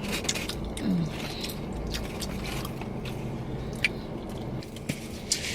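People eating takeout food: chewing, with scattered small clicks and rustles, over a steady low hum. A brief murmur about a second in.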